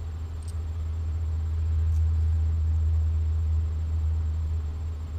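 A low steady hum that swells slightly in the middle, with two faint light clicks as small ferrite transformer cores are handled.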